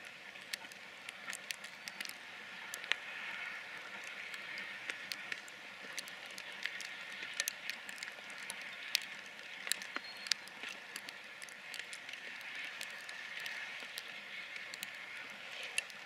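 Steam locomotive hauling a passenger train, heard from a distance as a steady noise, with many sharp, irregular clicks throughout.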